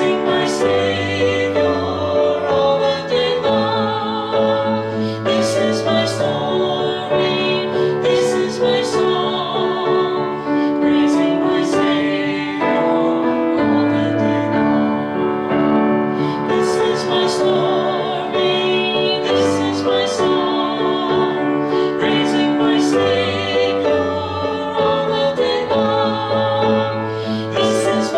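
Music: a slow song with a sustained singing voice over piano accompaniment.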